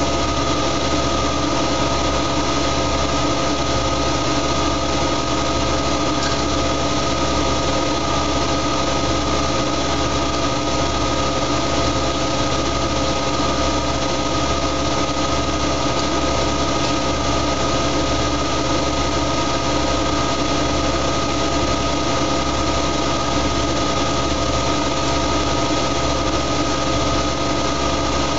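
Siemens Siwamat iQ washing machine running with an empty drum turning at a constant speed, a steady motor whine with a low hum underneath.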